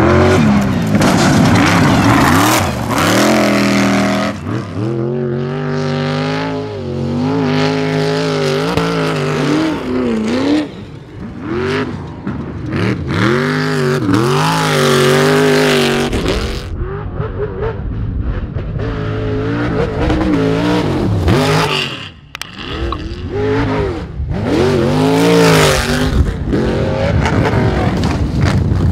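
Off-road race buggy's engine revving hard, its pitch climbing and dropping again and again as it accelerates and lets off over rough dirt.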